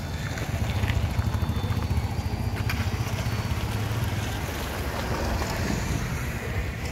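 Small engine of concrete paving machinery running steadily with a low drone.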